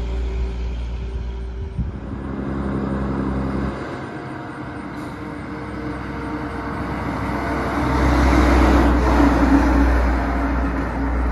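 Heavy diesel dump trucks driving by: engine and tyre noise, with one truck fading away early on. Then a loaded tri-axle dump truck approaches and passes, loudest about eight to nine seconds in.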